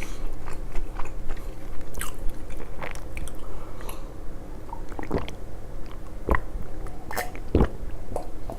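Close-miked chewing of fish and chips, with scattered wet mouth clicks and smacks that grow sharper in the second half.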